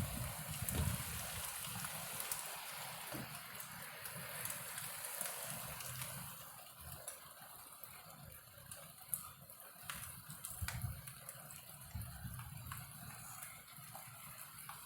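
Heavy rain pouring down: a steady hiss with scattered ticks of drops striking close by, easing slightly about halfway. Gusts of strong wind rumble on the microphone now and then.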